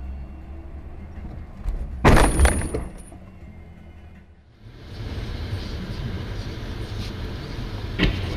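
Car collision heard from inside a dashcam car: a sudden loud crash about two seconds in, with crunching and shattering for about a second. Steady low road rumble follows, then a sharp knock near the end.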